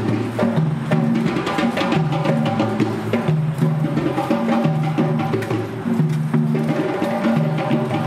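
Music with a steady beat: a bass line stepping from note to note under clicking, wood-block-like percussion.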